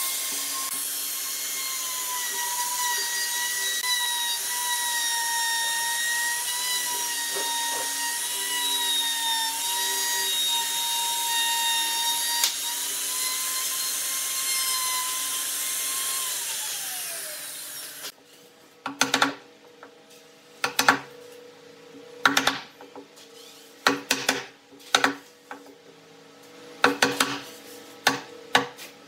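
Maktec MT362 plunge router running at speed as it cuts into a wooden slab, a steady high whine that winds down and stops about two-thirds of the way through. Then a chisel cutting out the butterfly-key recess, with a string of sharp knocks about a second or two apart.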